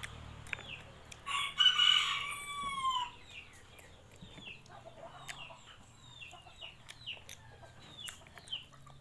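A rooster crows once about a second in, the loudest sound here, lasting under two seconds and ending in a long falling note. Short high chirps come and go throughout.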